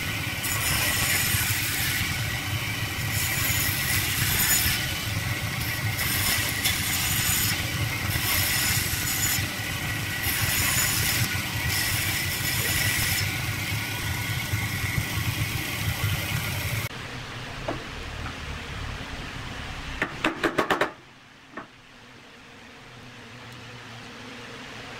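Band saw running and cutting through a block of epoxy resin and wood, a steady high whine under a hissing cutting noise that swells and fades as the block is pushed into the blade. About two thirds of the way through it gives way to a much quieter hum, with a quick run of sharp knocks shortly after.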